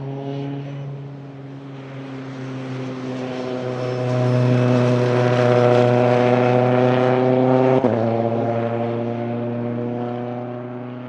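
The Caterham SP/300.R prototype's Rotrex-supercharged 2.0-litre Ford Duratec four-cylinder holds a steady note as the car passes at speed. It grows louder to a peak in the middle, breaks off briefly just under eight seconds in, then fades as the car pulls away.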